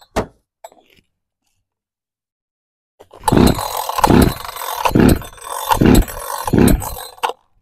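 Echo two-stroke chainsaw being pull-started: five quick pulls on the recoil starter, about one every 0.8 s, without the engine catching, the choke pulled out.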